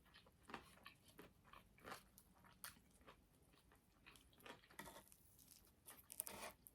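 Faint chewing of crunchy food, with irregular small crunches every fraction of a second and a louder flurry of crunching near the end.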